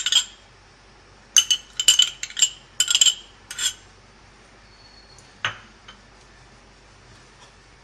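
A metal spoon clinking against a bowl, about half a dozen quick knocks as mayonnaise is spooned out into it, then one more knock about five and a half seconds in.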